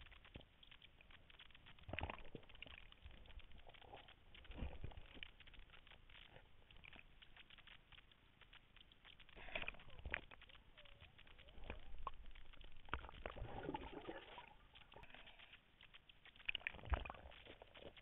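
Muffled underwater sound of German wirehaired pointers paddling past a submerged camera: faint sloshing with irregular knocks, a longer rush of water noise about two-thirds through, and the loudest knocks near the end.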